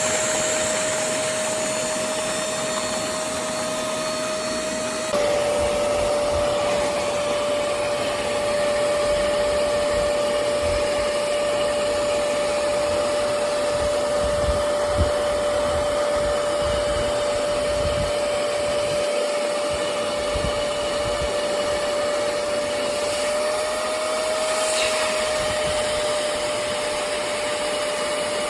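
Hoover CleanSlate portable carpet spot cleaner's suction motor running steadily with a high whine. About five seconds in, the whine drops slightly in pitch and the sound gets a little louder.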